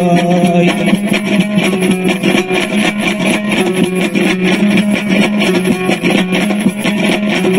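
Afghan dambura, a two-string long-necked lute, strummed fast and evenly in an instrumental passage. A man's sung line ends in the first second.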